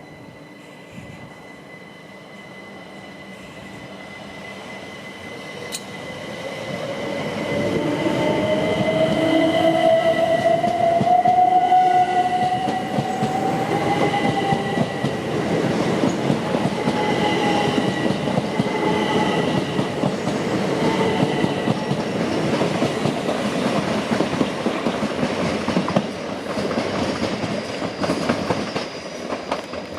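A train running into earshot, growing from faint to loud over the first ten seconds, with a whine that rises in pitch and a dense rumble of wheels on rail with many short clicks.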